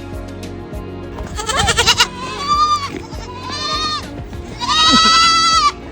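Goats bleating: four high calls about a second in, the first wavering and the last the longest, over soft background music.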